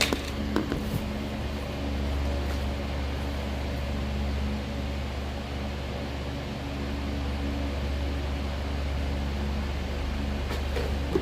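Steady low machine hum with an even hiss over it, with a few light clicks about a second in.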